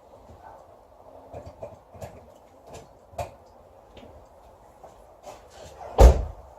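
Scattered light clicks and knocks of hands working around a car, then one heavy thump about six seconds in.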